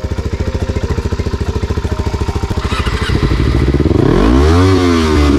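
Sport motorcycle's inline-four engine being started: the starter cranks it over in an even rapid chug for about three seconds, then the engine catches and is revved up and back down. The bike had been hard to start.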